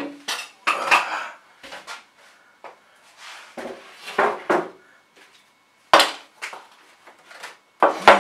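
A sheet of half-inch cement board and the gear around it being handled: scattered knocks, scrapes and rustles, with a sharp knock about six seconds in and another near the end.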